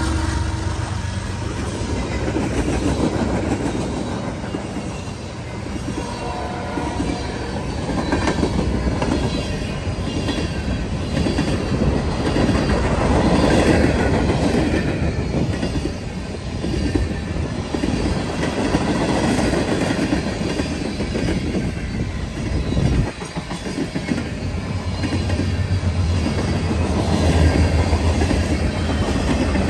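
Mixed freight train cars rolling past at speed: covered hoppers, tank cars and boxcars. A steady rumble of steel wheels on rail, with rhythmic clacking over the rail joints, and a deeper rumble in the last few seconds.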